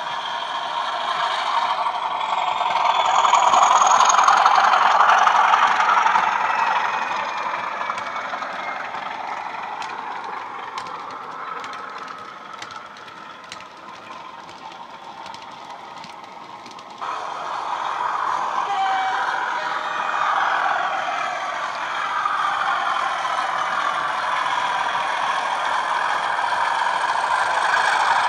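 Class 37 diesel sound from a Coastal DCC 37/0 sound file, played through an EM1 speaker in the fuel tanks of a Bachmann OO-gauge Class 37 model: the English Electric engine running under power, with drifting whistle-like tones over it. It swells to its loudest about four seconds in and fades away, then jumps suddenly louder about two-thirds of the way through and stays loud as the model comes back near.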